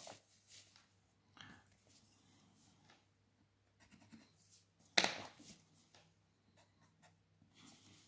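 Quiet pencil-and-paper drafting sounds: a pencil ruling lines along a plastic set square on a drawing board, with a brief, louder sound of the drawing instruments being handled about five seconds in.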